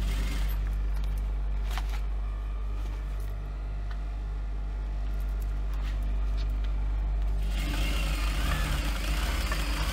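Global industrial sewing machine humming steadily with its motor running. About three quarters of the way in it starts stitching through faux leather at speed, with a fast rhythmic clatter.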